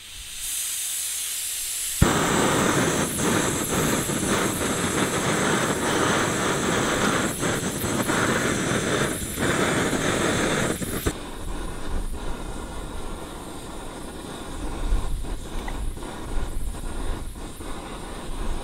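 Small backpacking canister stove: gas hisses from the opened valve, then it lights with a sharp click about two seconds in and burns with a steady, loud hiss of flame. The flame noise gets quieter about eleven seconds in.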